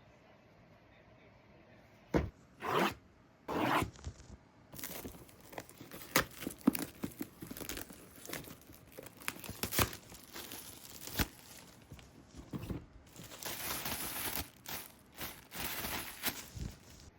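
Packaging being torn open and handled: short tearing bursts, then a long run of crinkling, rustling and sharp clicks. The longer tearing stretches come near the end.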